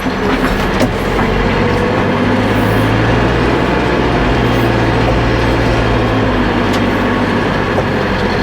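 Backhoe tractor engine running steadily while the machine works. It runs a little harder from about a second in until about six seconds in, then eases off.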